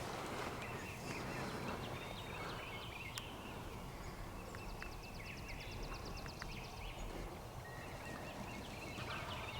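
Wild songbirds chirping and calling over a low steady rumble of outdoor background noise, with a fast trill of fine ticks about four seconds in lasting under three seconds.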